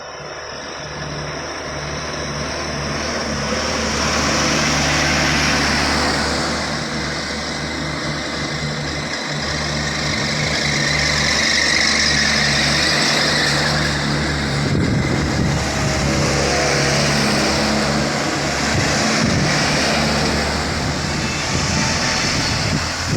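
Diesel engine of a laden sugarcane truck pulling at full throttle, growing louder over the first few seconds and then running steadily.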